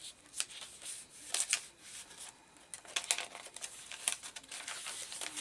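Paper rustling and rubbing as the paper pages and inserts of a handmade junk journal are handled and unfolded: a run of short, irregular rustles and scrapes.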